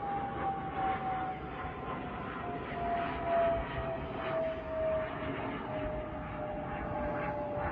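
Airplane engine drone, one steady tone that slides slowly down in pitch as the aircraft passes, over a low rumble.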